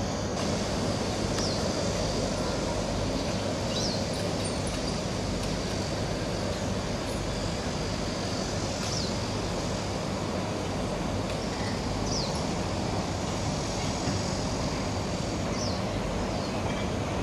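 Steady distant rumble of traffic and an MTR West Rail train running along a viaduct. Over it, a bird gives a short falling chirp every few seconds.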